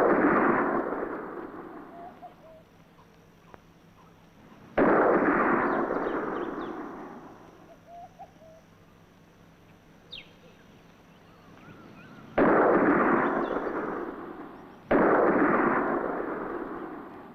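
Four sudden loud crashes of rushing noise, each fading away over two to three seconds.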